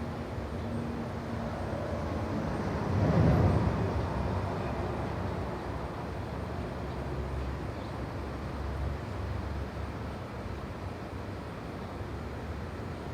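Residential street ambience: a steady low rumble of distant traffic, with one vehicle passing about three seconds in, its sound swelling and then fading away.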